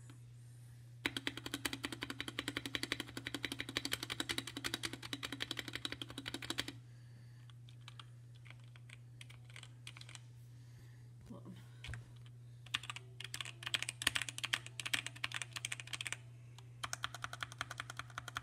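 Fast typing on a budget 60% mechanical keyboard with Otemu Red linear switches, foam-modded inside the case: three runs of rapid keystrokes, with a few scattered keypresses in the pauses between them.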